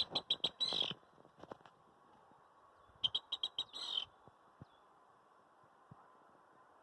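A marsh bird singing a short song twice, about three seconds apart: each phrase is a quick run of high notes that ends in a buzzy rattle.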